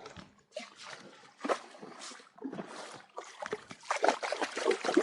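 Irregular splashing and scuffling in shallow water around a just-landed flathead, with several short bursts and brief pauses between them.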